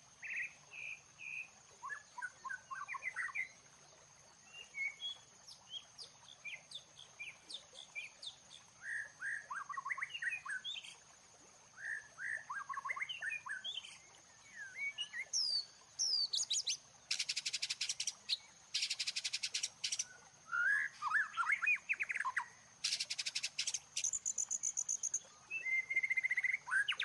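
Birds chirping and twittering in many short, quick calls. In the second half come a few bursts of fast rattling and then a rapid trill. A thin, steady high tone runs underneath.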